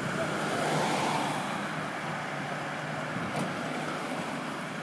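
Steady hum of vehicle engines and road traffic, with a broad swell of noise about a second in.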